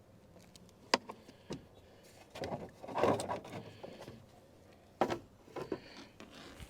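Hand work on a car's damaged mudguard as it is being removed: a few sharp clicks and knocks, one about a second in and another about five seconds in, with a rustling, scraping spell in between.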